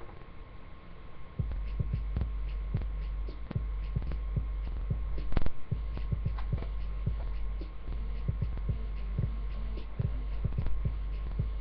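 A steady low rumble that starts abruptly about a second and a half in, with many irregular soft knocks and taps over it and one louder knock about halfway through.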